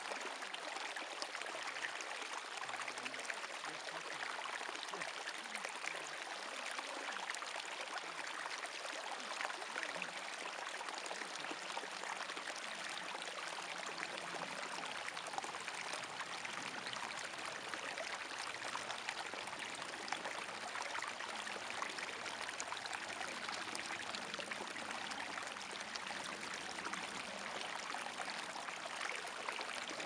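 Small, shallow brook running over stones, a steady rush of trickling water.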